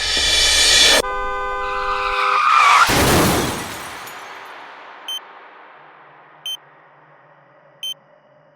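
A car horn blares for about a second before a loud crash cuts it off, and the crash fades away over about a second. A patient heart monitor then beeps three times, about one and a half seconds apart.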